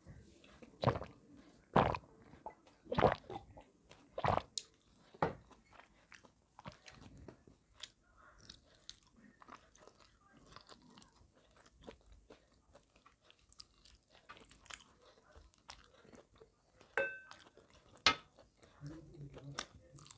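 Close-miked gulping of water from a glass: about five loud swallows roughly a second apart. Then soft chewing of curry and rice eaten by hand, with a brief ringing click near the end.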